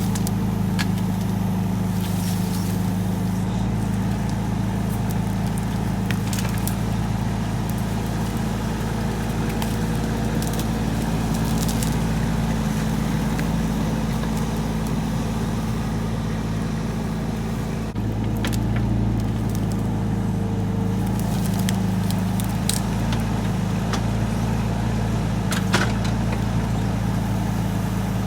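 Mini excavator's diesel engine running steadily under work, with scattered sharp clicks and snaps. The sound changes abruptly about two-thirds of the way through.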